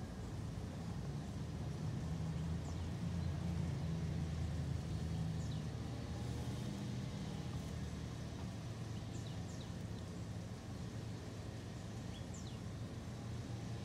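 Outdoor background: a steady low rumble, a little louder in the first half, with a few short, high chirps scattered through it. The snake swallowing the frog makes no sound that stands out.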